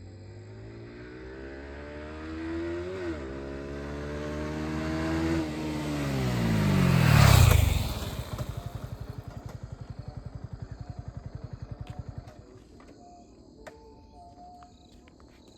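Sport motorcycle with a quickshifter and stock exhaust accelerating past, its revs climbing and snapping down with a quick upshift about three seconds in, then climbing again. It is loudest as it passes about seven seconds in, the pitch dropping sharply, then fades away with a pulsing note until the sound dies out about four seconds later.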